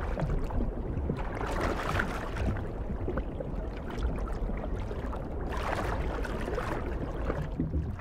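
Underwater ambience: a muffled, steady rush and gurgle of moving water, swelling briefly a little past the middle.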